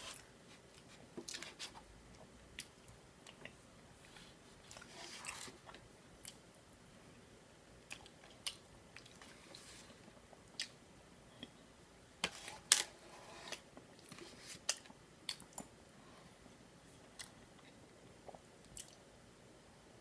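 A person eating a slice of soft sponge cake: quiet chewing and mouth sounds, broken by scattered sharp clicks, the loudest a little past halfway.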